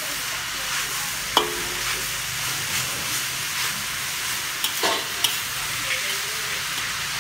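Cabbage, chives, carrot and minced meat sizzling in a hot wok while a metal spatula stirs and tosses them. Sharp clinks of the spatula against the wok sound about a second and a half in and again around five seconds.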